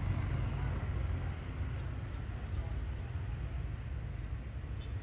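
Road traffic passing a railway level crossing: a steady low vehicle rumble that eases slightly after about a second.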